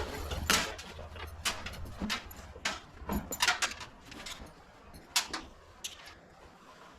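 A string of irregular sharp clicks and knocks, with the loudest about half a second in, around three and a half seconds, and just after five seconds: buckles and fittings being handled while the canvas top's straps are hooked up on the Jeep.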